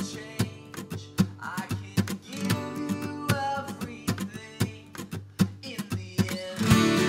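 Background music: acoustic guitar, plucked notes with a steady pulse.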